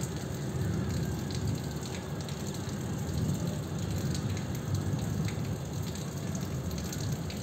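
Steady rain falling during a thunderstorm, with a continuous low rumble underneath.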